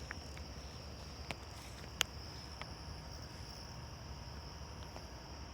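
Steady high-pitched insect chorus, typical of crickets, with a few sharp clicks, the loudest about two seconds in.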